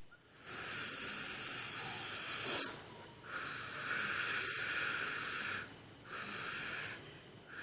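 Beatboxer's 'cricket sound' effect: a high, breathy whistle made by blowing air between the upper teeth and the pushed-out lower lip. It comes in three blows, two long and one short, the pitch wavering with small dips.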